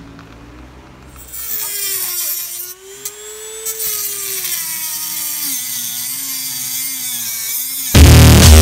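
Handheld rotary tool with a cut-off wheel whining as it cuts into a plastic light housing, its pitch wavering and dropping as the wheel bites. Loud electronic music cuts in near the end.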